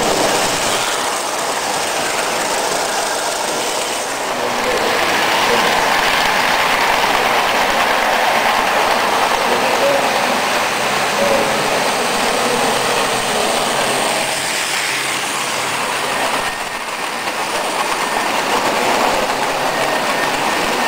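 Vintage tinplate model trains running close by on tinplate track: a steady metallic rattle and clatter of wheels on the sheet-metal rails, with a couple of abrupt drops in level.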